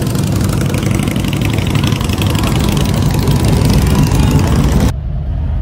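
Cruiser and touring motorcycle engines running as a line of bikes rides slowly past, a dense, pulsing rumble. About five seconds in the sound cuts abruptly to a duller, more muffled engine rumble.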